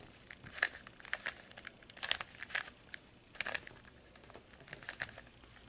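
Plastic layers of a Z-Penrose cube, a 3x3 twisty puzzle with curved pieces, clicking and clacking as they are turned by hand. The turns come as a quick series of short click clusters with brief pauses between them.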